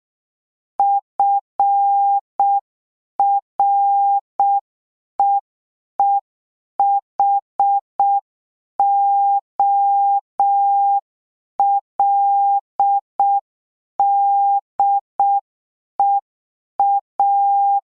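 Morse code sent as a single steady beep tone at a slow practice pace, dots and dashes spelling out the word 'freeholder' (..-. .-. . . .... --- .-.. -.. . .-.).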